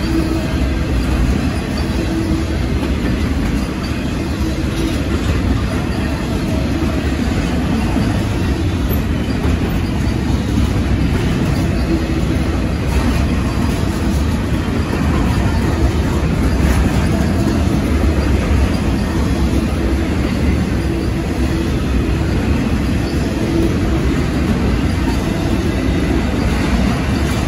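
A long Norfolk Southern intermodal freight train rolling slowly past: a steady, unbroken rumble of wheels on rail.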